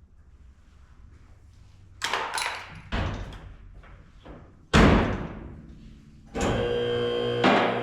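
A few knocks and clunks, then one loud sharp bang just before the middle. Near the end a steady electric hum starts and keeps going.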